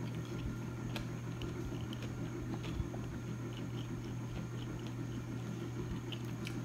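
Quiet chewing while eating by hand, with scattered faint mouth clicks, over a steady low hum.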